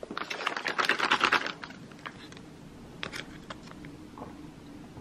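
A burst of crackling, static-like noise from a glitch transition effect, lasting about a second and a half, then faint scattered clicks and ticks.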